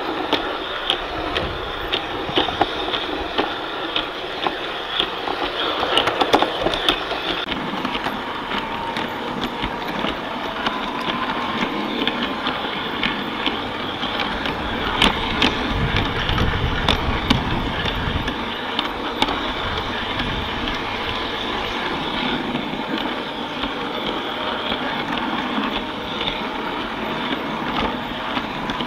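Garden-scale model train running on its track, heard from a camera riding on one of its coaches: a steady rolling noise from the wheels, with many sharp clicks.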